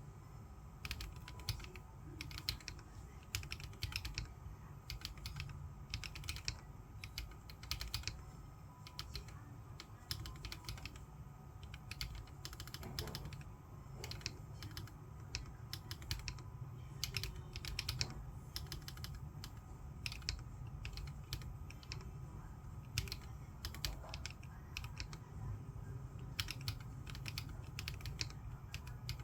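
Typing on a Corne v3 split mechanical keyboard with lubed switches and Lumia Macha keycaps: a steady, irregular stream of key presses, several a second. A steady low hum runs underneath.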